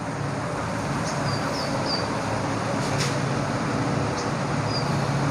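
Steady hum and rushing noise of a running fan, with a few faint, short high chirps.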